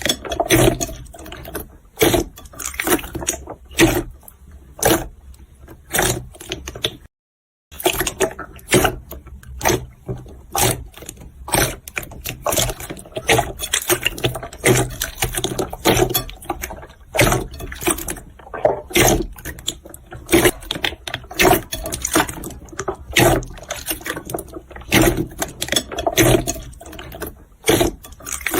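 Jiggly slime being squeezed and pressed by hand: a steady run of sticky clicks, pops and squelches, broken by a brief dead silence about seven seconds in.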